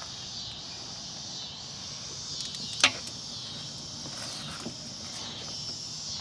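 Crickets chirring steadily, with one sharp click a little under three seconds in and a few fainter clicks around it, as of tools working on the brake caliper.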